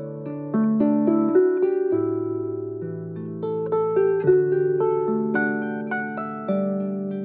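Background music: gentle plucked harp notes in slow arpeggios and chords.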